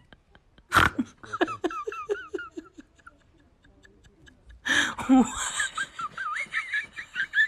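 A person laughing in two bouts: a loud burst about a second in that breaks into quick rhythmic laughs, then another starting near five seconds that turns into high-pitched giggling.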